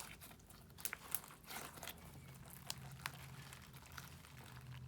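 Homemade borax slime being squeezed and stretched in the hands, giving faint scattered clicks and small pops, over a low steady hum that sets in about two seconds in.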